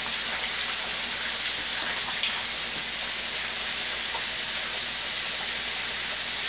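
Floured chicken thighs deep-frying in hot vegetable oil in an electric skillet: a steady high sizzle with a few sharp pops.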